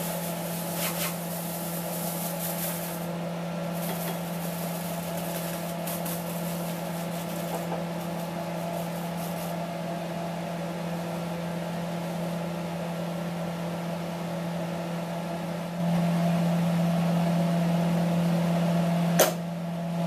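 Steady hum of a small electric motor, a low drone that gets louder about sixteen seconds in, with one sharp click near the end.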